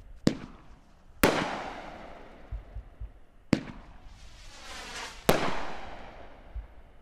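Red Rhino Pyro World consumer firework cake firing: four sharp bangs a second or two apart, the louder ones trailing off in long echoes. A hissing rise comes just before the last bang.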